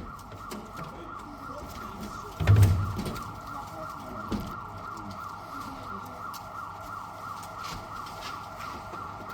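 A siren keeps wailing faintly in the background. About two and a half seconds in, there is a single loud thud.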